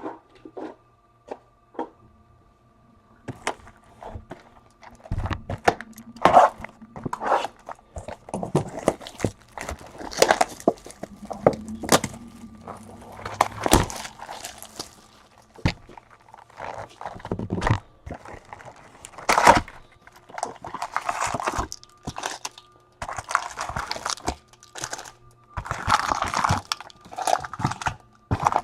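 A trading-card box and its wrapped packs being opened and handled: irregular thunks and knocks of cardboard, with crackling and crinkling of plastic wrapping coming in bursts.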